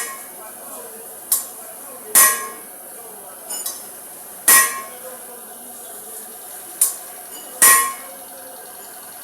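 Sharp metal-on-metal strikes, about six of them at irregular intervals, each ringing briefly, over a steady background noise.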